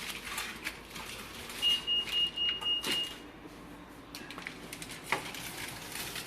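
Soft kitchen handling noises: light rustles and clicks as hands work butter and seasoning into a raw chicken. About a second and a half in, a steady high-pitched tone sounds for about a second and a half, and there is a sharper click about five seconds in.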